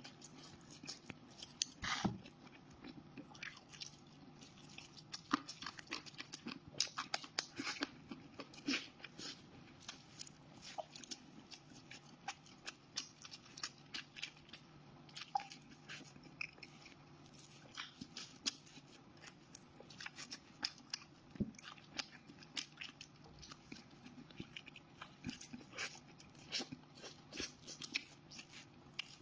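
Close-miked eating of crunchy food: irregular crisp crunching bites and chewing throughout, over a faint steady low hum.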